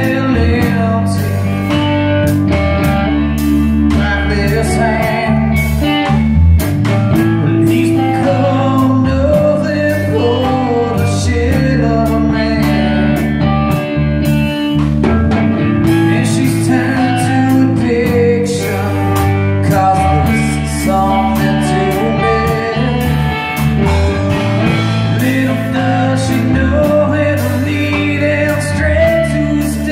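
A band playing blues-rock at practice: guitar over a steady low bass line with a drum kit keeping the beat.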